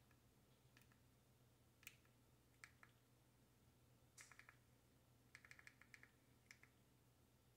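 Faint, sharp clicks from scrolling a TV's on-screen menu with a remote: a few single clicks, then quick runs of several from about four seconds in.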